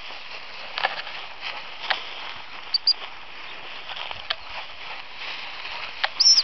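Rustling and twig snaps as a springer spaniel and its handler push through long dry grass and scrub. Two short high whistle pips come about three seconds in, and one louder whistle blast near the end, typical of a gundog whistle used to handle a hunting spaniel.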